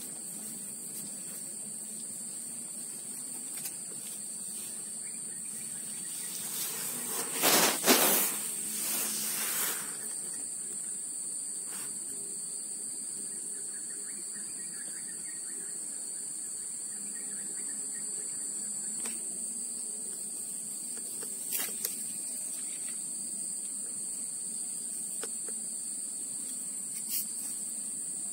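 A steady, high-pitched drone of insects in the grass. About seven seconds in there is a brief, louder burst of noise lasting a couple of seconds, and later a couple of faint clicks.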